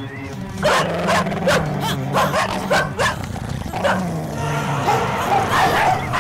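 Dogs barking fast and aggressively, a few barks a second with some higher yelps mixed in. The barking starts under a second in and thickens into overlapping barks near the end, over a low, steady background music drone.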